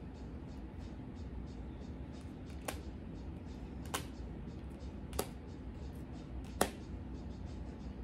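Tarot cards being handled: four sharp clicks, about a second and a quarter apart, over a steady low hum.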